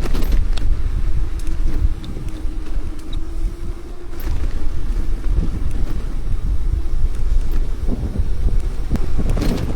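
Wind buffeting the microphone as a bicycle rolls downhill: a loud, continuous low rumble, with a faint steady hum through the first half and a few scattered clicks.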